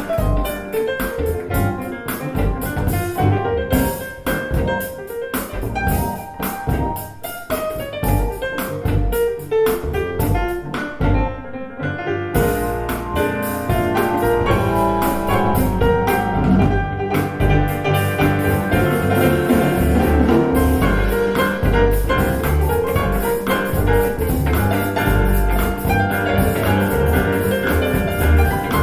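Instrumental music with piano and drums, played back through a pair of KEF LS50 bookshelf speakers.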